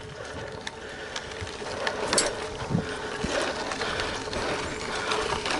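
Trek 920 gravel bike rolling along a dirt trail: tyres crunching over dirt and gravel, with the bike ticking and rattling over bumps.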